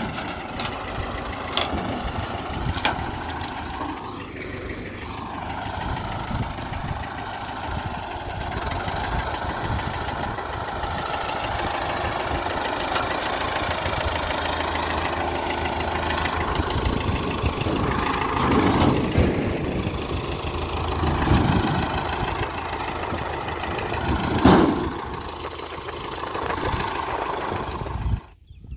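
Engine idling steadily, with a few sharp knocks along the way, one near the end louder than the rest; the sound cuts off suddenly just before the end.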